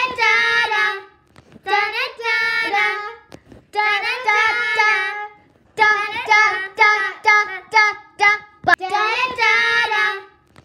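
A child singing unaccompanied, a short intro tune in about five phrases of held, sliding notes with brief pauses between them.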